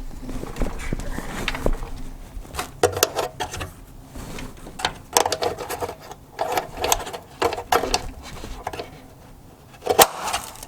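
Plastic wheel well parts being handled and pressed into place in a truck's wheel well: irregular clusters of short plastic clicks and rattles, the loudest a sharp knock near the end.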